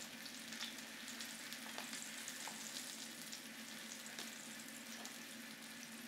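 Breaded chicken cutlet frying in hot oil in a stainless steel skillet: a steady sizzle with scattered small crackles and pops. The sizzle is the sign that the pan and oil are hot enough to sear the breading.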